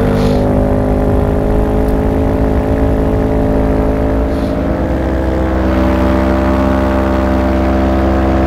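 Paramotor engine and propeller running steadily in flight, close up and loud, easing slightly about halfway through before holding steady again.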